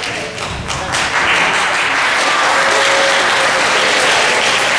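Audience applauding, starting up about a second in and then holding steady.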